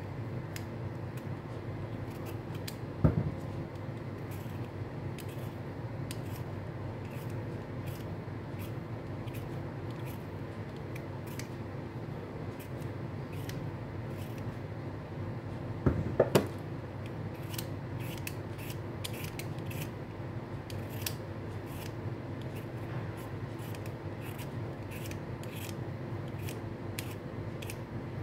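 Hand vegetable peeler scraping the skin off a raw beetroot in short, repeated strokes, over a steady low hum. There are two louder knocks, about 3 and 16 seconds in.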